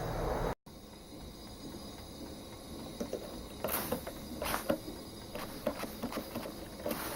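A steady noise that cuts off abruptly just after the start, then scattered small clicks, taps and short scraping or rustling sounds, like hands handling tools or material at close range.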